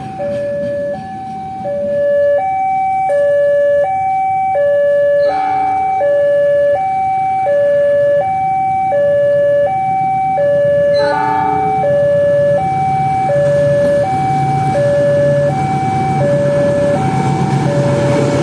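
Railway level-crossing warning alarm sounding a steady high-low two-tone signal, about one full cycle every 1.3 seconds, the signal that a train is approaching the crossing. A low rumble builds beneath it in the second half.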